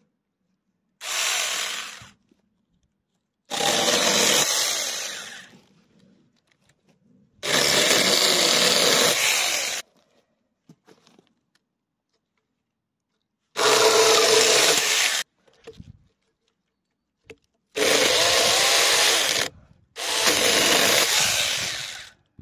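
Saker battery-powered mini electric chainsaw run in six short goes of one to two and a half seconds each, with the chain cutting into a log and falling silent between goes.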